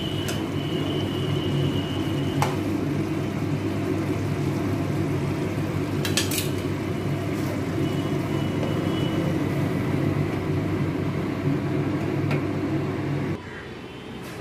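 Metal spatula stirring and knocking in a kadai of thick curry, a few sharp taps against the pan, over a steady low hum that cuts off near the end.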